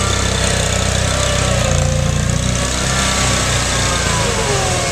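Mudd-Ox 8x8 amphibious vehicle's engine running as it crawls on Adair tracks over the mud, its revs dropping from about three and a half seconds in.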